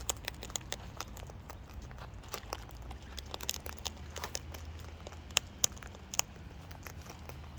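A cockatoo cracking and chewing seed with its beak: a steady run of irregular small crunches and crackles, with a few sharper snaps about five and a half to six seconds in.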